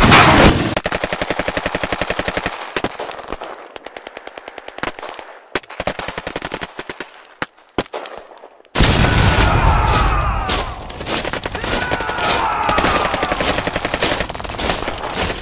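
Dubbed battle gunfire: a sharp blast at the start, then rapid machine-gun fire, then scattered single shots. About nine seconds in, a louder and denser burst of gunfire begins, with falling whistle-like tones running through it.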